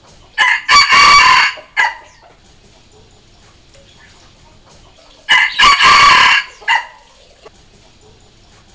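Red junglefowl rooster crowing twice, about five seconds apart, each crow broken into a short opening note, a longer middle note and a short clipped final note. It is a decoy junglefowl's crow, played to provoke and call in wild junglefowl roosters.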